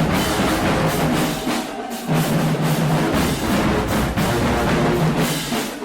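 Loud music with drums and percussion, dropping back briefly twice, about a second and a half in and near the end.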